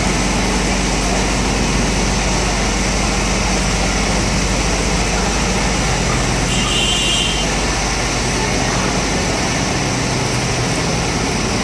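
Steady drone of idling fire engines mixed with city street traffic noise.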